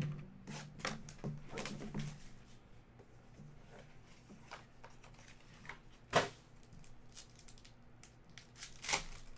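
Cardboard trading-card box being opened and a foil card pack torn open by hand, with crinkling of the wrapper. Several short rustles and tears, the sharpest about six seconds in and another near the end.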